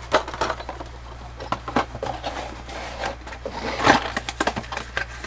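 Clear plastic blister pack of metal miniatures being handled and put down: irregular crinkles and clicks, loudest about four seconds in.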